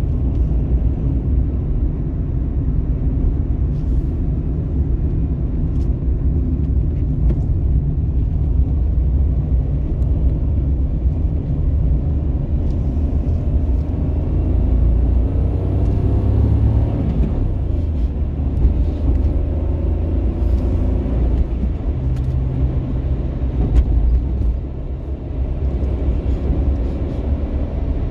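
Steady low rumble of a car driving at road speed, with engine and tyre noise heard from inside the cabin.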